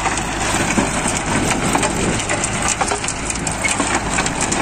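Tractor-mounted Mahindra rotavator churning dry, grassy soil behind a tractor's diesel engine working under load, with a dense run of small clicks and knocks from clods and stones hitting the blades and hood. The blades are breaking the soil down to a loose, crumbly tilth.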